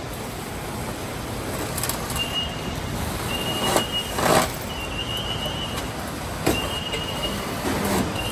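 Car assembly plant floor noise: a steady machinery din, with a few sharp knocks and clanks and a short hiss about four seconds in. Through the middle stretch a high steady tone sounds in several short spells.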